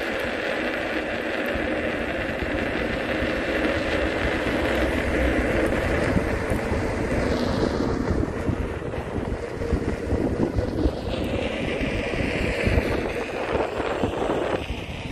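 Wind buffeting the microphone over steady street traffic noise, with vehicles going by, one about seven seconds in and another around twelve seconds.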